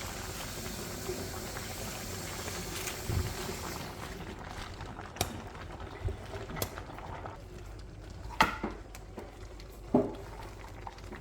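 A pot of vegetables and mung beans bubbling on the stove, a steady hiss that thins out about four seconds in, with a few sharp knocks against the pot in the second half.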